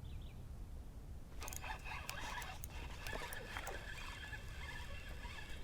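Fishing reel being cranked as a hooked small bass is reeled in, a fast run of faint clicks over a thin steady whine starting about a second and a half in, over low wind rumble.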